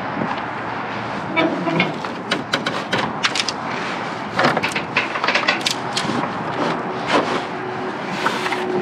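Boxed glassware and other rubbish being handled and shifted in a dumpster: a quick, irregular run of sharp clinks and knocks.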